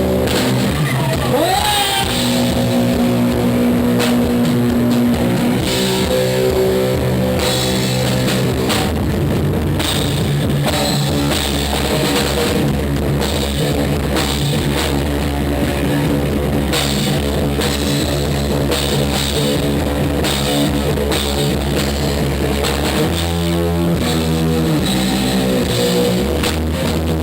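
A rock band playing a song, with guitar and drum kit.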